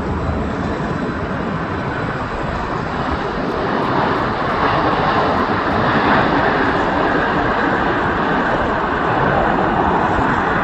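Jet engines of a landing Boeing 767: a steady rushing noise that swells slightly around the middle.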